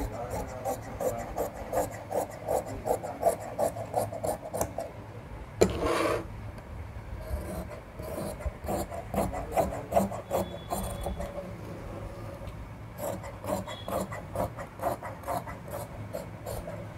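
Large tailor's shears snipping through doubled trouser cloth in runs of quick, rasping cuts about four a second. There is one louder scrape about six seconds in and a short pause before the last run.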